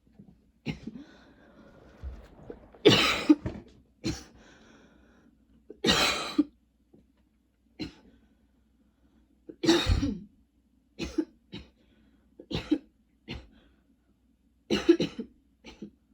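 A woman coughing over and over in short spells, about a dozen coughs in irregular groups with pauses between them. It is the persistent coughing of a throat tickle that won't clear.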